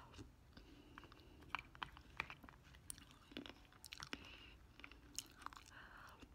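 Faint close-up eating sounds as spoonfuls of soft, melted ice cream are taken from a metal spoon: scattered small clicks and wet mouth smacks.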